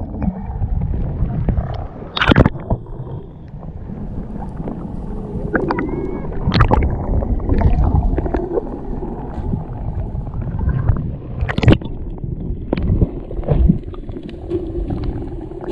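Muffled underwater sound picked up by a submerged camera: water churning and gurgling around swimmers, with a few sharp knocks, about two seconds in, near seven seconds and near twelve seconds.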